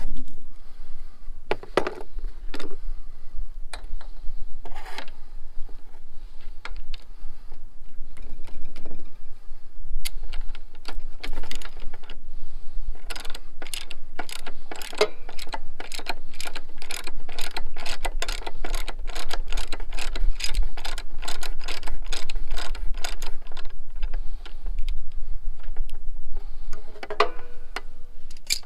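Ratchet wrench with a spark plug socket clicking in a steady run, about three clicks a second for roughly ten seconds, as the mower engine's spark plug is worked loose. Scattered clicks and knocks of hand tools come before and after the run.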